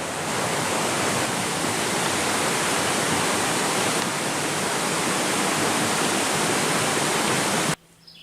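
Steady rushing of flowing water, like a stream or small cascade, which cuts off suddenly near the end.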